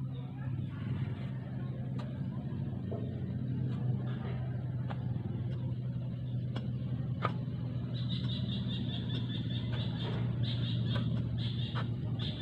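A steady low engine hum, with scattered sharp knocks and scrapes of a shovel working sandy ground. About two-thirds of the way through, a rapid, high, pulsing chirring joins in.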